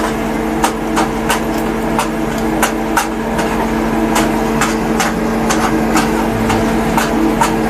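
Kitchen knife chopping on a cutting board in a steady rhythm of about three strokes a second, over a steady hum from a kitchen appliance.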